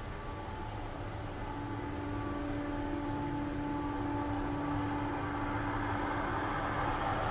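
Empty covered hopper cars of a freight train rolling past: a steady rumble of wheels on rail with a steady tone, gradually growing louder.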